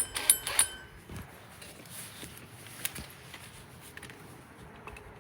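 A quick run of sharp metallic clinks, ringing briefly, in the first second, then quiet with a few faint handling clicks: metal parts or fittings being handled while changing over to a 2.5 inch part.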